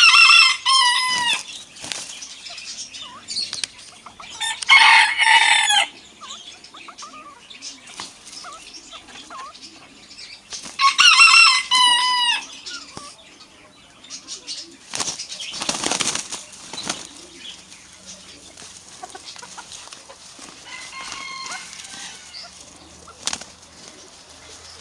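Loud bird calls, three times about five seconds apart and each about a second long, from a rooster and the other bird it is facing. A noisy rustle of wing flapping comes about fifteen seconds in, and a fainter call follows near the end.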